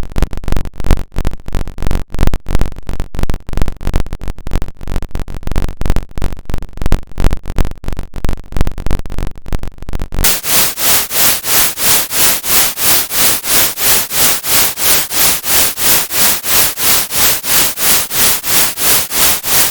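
Computer-synthesised audio generated from a mathematical formula: an irregular, harsh stuttering buzz with a deep low end. About ten seconds in it changes abruptly to an even pulsing hiss, about four swells a second, as new operands enter the formula.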